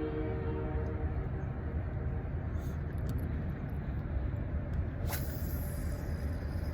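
A chord of held horn-like tones fades out just after the start, leaving a steady low rumble with a few faint clicks.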